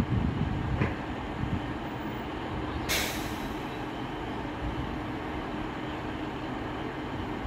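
Class 150 Sprinter diesel multiple unit idling with a steady low diesel hum, with a few low thuds near the start. About three seconds in comes one short hiss of compressed air, typical of the air brakes venting.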